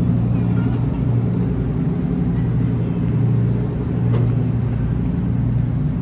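A large engine running steadily close by: a low drone that swells and eases every second or so.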